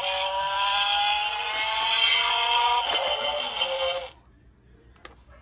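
Lightning McQueen transforming bump-and-go toy car playing its electronic tune through its small speaker, cutting off suddenly about four seconds in as the toy is switched off. A couple of faint clicks follow.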